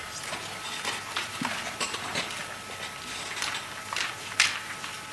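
Papers being handled at a microphone: light rustling with scattered small clicks and knocks, the loudest a sharp knock near the end, over a low steady room hum.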